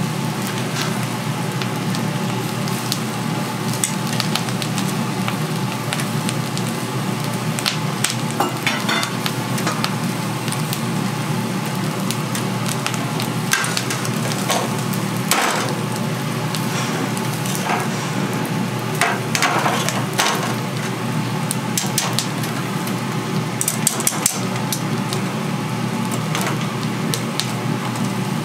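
Chicken feet sizzling over a charcoal grill, with scattered sharp crackles and pops over a steady low hum.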